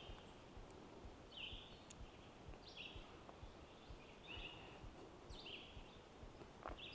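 A songbird faintly singing a short phrase that slurs downward, repeated over and over about every second and a half, with soft footsteps beneath it.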